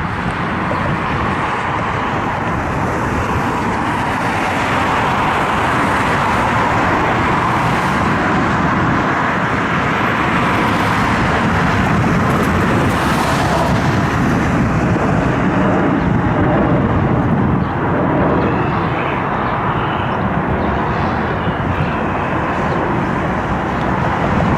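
Jet airliner engine noise, a loud steady rushing sound that swells gradually to a peak around the middle and eases off slightly near the end.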